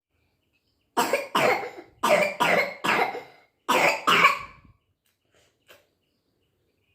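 A young girl coughing: seven coughs in three quick bouts. The cough comes with the viral fever and cold she is suffering from.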